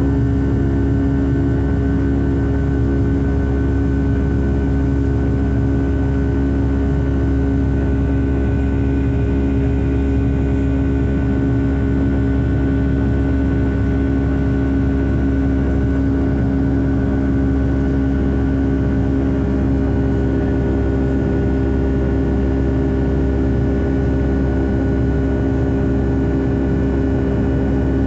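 Boeing 757-300 jet engines heard from inside the passenger cabin: a loud, steady hum with a constant low drone and a thin high whine, faintly pulsing in the first half.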